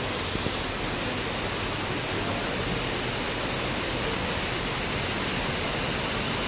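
Steady hiss of heavy rain falling, together with floodwater rushing over a road.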